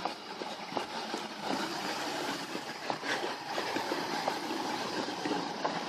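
Street traffic noise: a vehicle engine running, with scattered light clicks over it.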